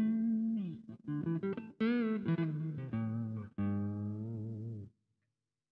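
Harley Benton TE-20 Telecaster-style electric guitar played in single notes and short phrases, with a string bend about two seconds in. The last note rings, then stops about five seconds in.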